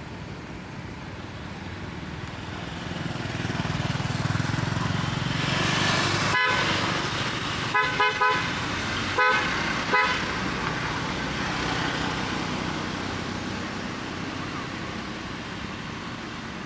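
A road vehicle passing by, its noise swelling and then fading, with short horn honks: three in quick succession, then two more.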